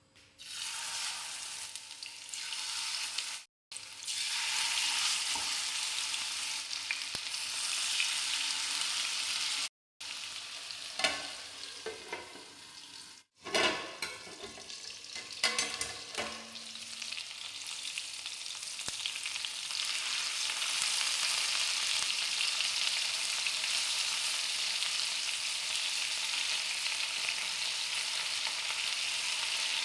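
Marinated chicken pieces frying in hot oil in a pan: a steady sizzle, cut off abruptly three times, with a few sharp knocks and scrapes of stirring about halfway through.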